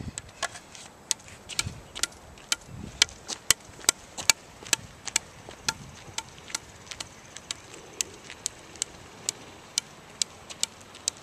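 Orange plastic street hockey ball bouncing repeatedly on the blade of a hockey stick, sharp regular taps about three a second as it is juggled on the stick.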